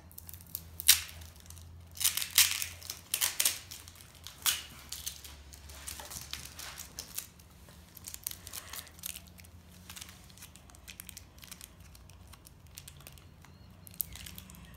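Crinkling and rustling of small plastic packaging handled in the fingers, with irregular sharp crackles that are busiest in the first seven seconds and fainter after.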